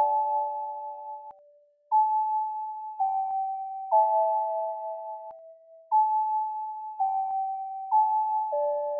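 Pentatonic musical notes sonifying the orbits of the TOI-178 planets. A note sounds each time a planet in the resonance chain completes a full or half orbit, and notes ring together where planets align. The notes come about once a second, sometimes two at once, each starting sharply and fading, with a brief gap about two seconds in.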